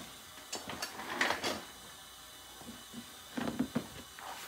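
Handling noise from a printed DTF transfer film sheet and a plastic powder tub: rustling about a second in, then a few clicks and knocks near the end.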